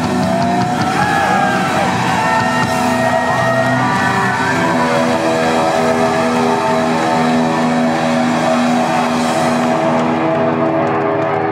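Amplified electric guitars left ringing at the end of a math-rock song, with no drums. For the first few seconds wavering, gliding feedback tones sound over the chord, then a steady sustained drone of several held notes.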